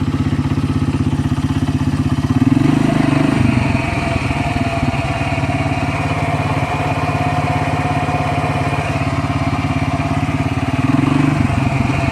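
ATV engine running, with a steady tone and two brief rises in revs, about two and a half seconds in and near the end. Over it is an abnormal rustling noise that the owner puts down to a fault in the CVT variator.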